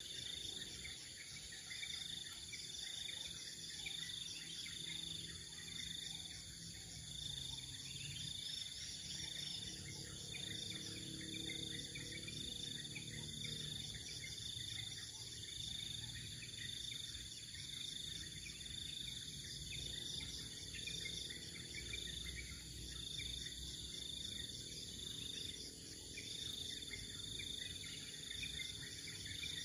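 Steady chorus of forest insects: high-pitched pulsing trills with scattered chirps, going on without a break.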